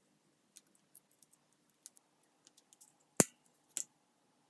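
Small clicks and taps of the Brompton gear shifter's plastic encasement being handled and fitted back onto the shifter, with one sharp, loud click a little past three seconds in and a smaller one just after.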